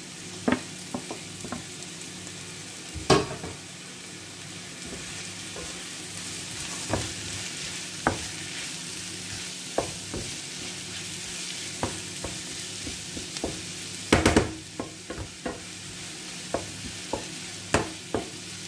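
Chopped onion and bell peppers sizzling in oil in a nonstick frying pan, while a wooden spatula stirs them, scraping and clicking against the pan. Louder knocks come about three seconds in and again near fourteen seconds.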